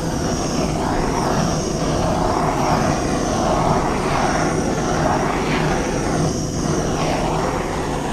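Electric heat gun blowing steadily, its fan whirring with a low hum, its level rising and falling slightly as it is swept over wet acrylic pour paint to bring up cells.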